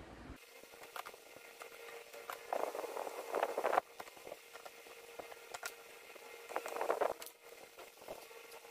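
Light clicks and taps from hand work on small plastic and metal parts, with two scraping stretches of about a second each, one near the middle and one near the end, over a faint steady hum.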